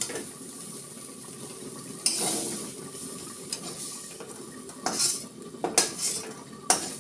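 Lidded wok of meat curry cooking on a gas stove with a steady sizzle. Several sharp clinks of utensils against pots and plates come through it, one about two seconds in and a cluster from about five seconds on.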